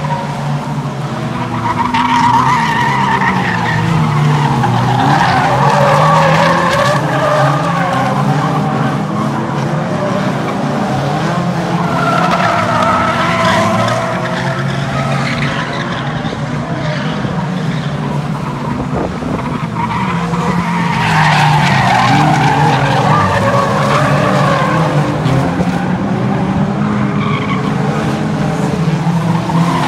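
Several 1600cc Production Hot Rod race cars lapping an oval track, their engines revving up and down as they brake and accelerate. The noise swells loudest each time the pack comes past.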